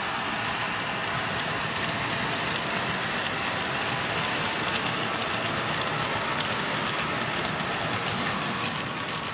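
H0-scale model grain hopper wagons rolling along the track, a steady rolling rattle of small wheels on rail with many irregular clicks.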